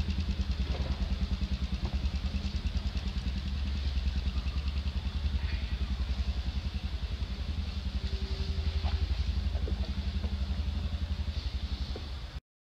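A small engine idling steadily nearby, a low, rapidly pulsing rumble, with a faint high chirring above it; it cuts off abruptly near the end.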